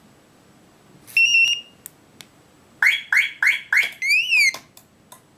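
Electronic beeps from a KGB FX-7 car alarm system answering a silent-arming command from its key fob. There is one short beep about a second in, then four quick rising chirps and a rising-and-falling warble a little later. The alarm is signalling that a door is open, so it does not arm.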